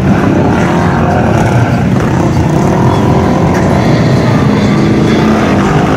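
Side-by-side UTV's engine running loudly and steadily while the machine sits bogged down in deep mud.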